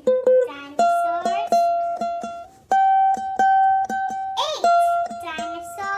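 Background music: a plucked string instrument playing a simple tune in evenly repeated notes, with short warbling, gliding sounds laid over it about a second in and again near the end.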